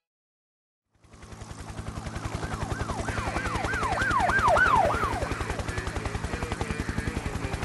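After about a second of silence, a fast steady low thudding pulse fades in. Over it a police siren wails in quick falling sweeps, about three a second, loudest in the middle, then stops while the pulse runs on.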